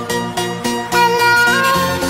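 Background electronic music: a synth melody stepping between notes over short repeating low notes, with the deep bass returning near the end.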